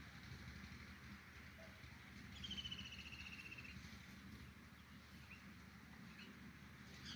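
Near silence with a faint low hum; about two and a half seconds in, a small bird gives one rapid trill lasting about a second, falling slightly in pitch.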